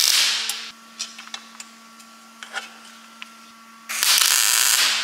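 MIG welder crackling in two short bursts of about a second each as car body sheet metal is tack-welded. The first burst stops just under a second in; the second starts about four seconds in and tails off at the end.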